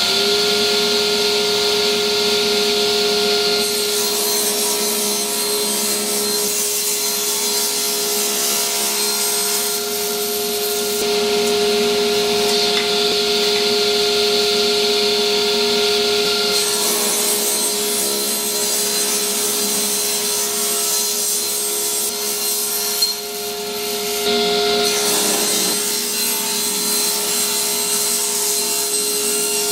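A small electric power tool running at a steady pitch while cutting or shaping wood, with a constant motor whine over a scraping hiss. It falters briefly about 23 to 26 seconds in, then runs on.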